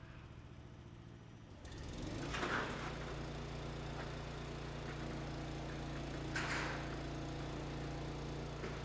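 A motor vehicle engine running with a steady low hum, which grows louder about two seconds in; two brief rushing noises come about four seconds apart.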